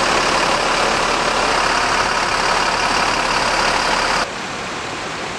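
Mercedes-Benz Damri coach's diesel engine idling close by, a loud steady running noise. About four seconds in, it drops abruptly to a quieter steady hiss.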